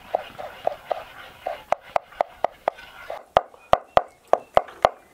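Kitchen knife chopping green herbs on a wooden cutting board: a steady run of quick strikes, about three or four a second, growing sharper and louder about three seconds in.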